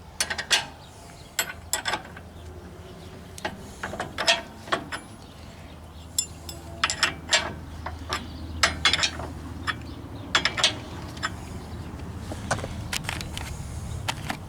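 Metal hand tools and parts clicking and clinking irregularly while a skid steer's hydraulic cylinder is being fastened, over a steady low hum.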